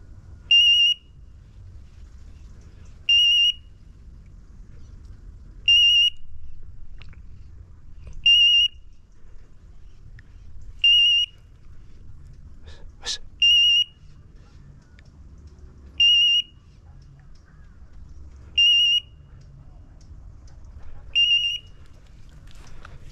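Hunting dog's beeper collar giving short, shrill electronic beeps at an even pace, one about every two and a half seconds. A single sharp snap comes about halfway through.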